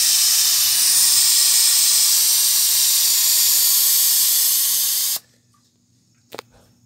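Compressed air hissing loudly from the pneumatic can crusher's air line and valve, cutting off suddenly about five seconds in. A single click follows shortly after.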